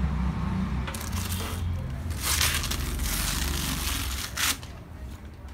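Clear plastic bag crinkling in three bursts, the longest about two seconds in, as it is pulled off a PC tower case.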